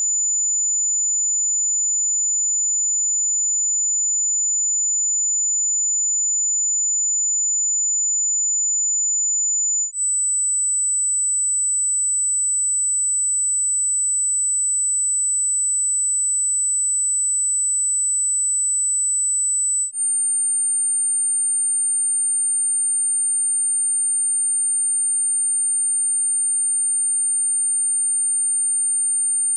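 Pure sine test tones for tinnitus pitch matching, each held steady for about ten seconds and stepping up from 7000 Hz to 8000 Hz to 9000 Hz, with a very brief drop between steps.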